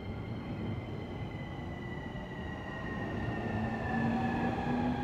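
E231 series electric commuter train pulling out of the platform. Its traction motors whine, rising in pitch and growing louder as it gathers speed, over the rumble of the wheels on the rails.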